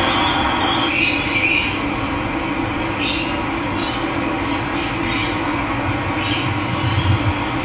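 Steady rush of running water, with a bird giving short, repeated calls about every second.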